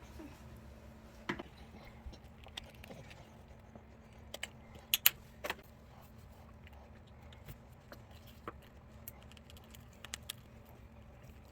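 Scattered clicks and clinks of kitchen items being handled, loudest in a quick cluster of sharp knocks about five seconds in, over a low steady hum.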